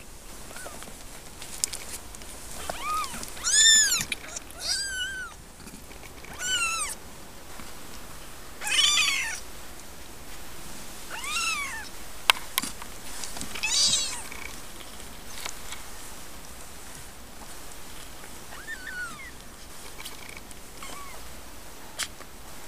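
Two-week-old Siamese kittens mewing while they nurse: about ten short, high-pitched mews that rise and fall, scattered through, the loudest around four and nine seconds in. A couple of sharp clicks stand out, one about halfway through and one near the end.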